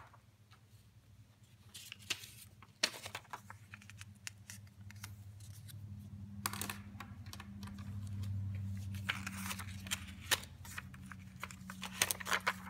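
Sheets of paper being handled on a desk: rustling and sliding as pages are moved and laid down, with scattered sharp clicks and taps, busiest near the end, over a low steady hum.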